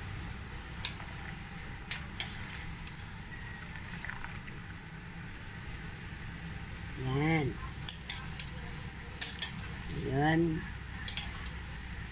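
Wire skimmer clinking against the wok as blanched green beans, mushroom and carrot are scooped out of the water, a few scattered sharp clicks over a steady low hum. Two short hummed voice sounds come in the second half.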